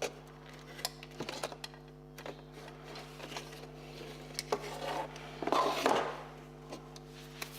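Irregular light clicks and knocks of plastic and metal compressor parts being handled during a teardown, with a short louder rustle about five and a half seconds in, over a faint steady hum.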